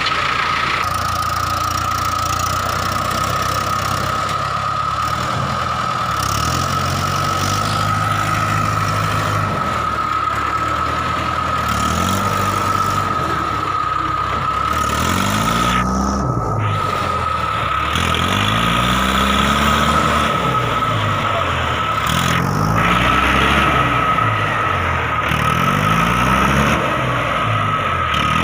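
Mahindra 555 DI tractor's diesel engine running, then revved up and dropped back again and again, each rise and fall lasting a few seconds, as the tractor works to pull free of mud. A steady high whine sounds throughout.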